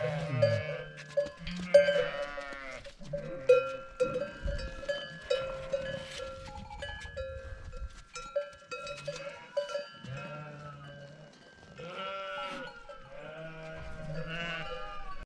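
Penned young sheep and goats bleating again and again, high calls overlapping from several animals, with small bells clinking among them.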